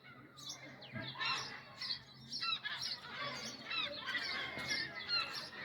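A flock of seagulls calling: many short, overlapping calls in quick succession.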